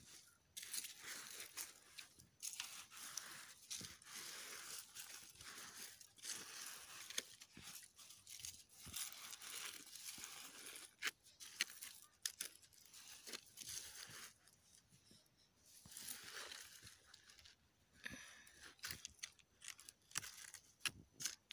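Hands scraping and pressing dry, crumbly soil around a freshly planted pineapple crown: soft, irregular crunching and rustling of earth, with a couple of short lulls in the second half.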